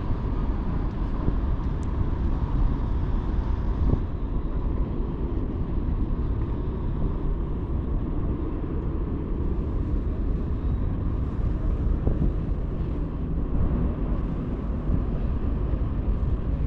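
Wind on the microphone: a steady, low rumble that swells and eases a little, with a faint steady tone above it.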